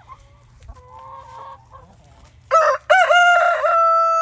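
Faint clucking of chickens, then a rooster crowing loudly about two and a half seconds in: a rising start that breaks into one long held final note.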